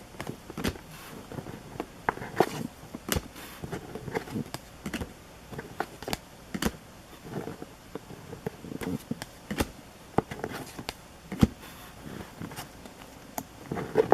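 Baseball trading cards being handled: irregular sharp clicks and taps as the cards are flicked and set down, with a light crackle in between and one louder tap about 11 seconds in.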